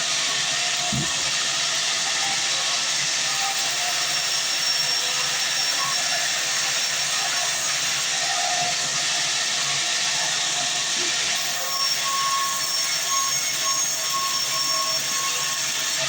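Band sawmill cutting a long mahogany log: a steady, hissing sawing sound with faint whining tones over it.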